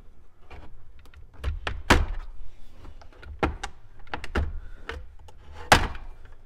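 Plastic trim clips of a 2008 Jeep Wrangler's dash bezel popping loose as the bezel is pried off with a plastic panel tool: a string of sharp clicks and snaps, the loudest about two seconds in and near the end.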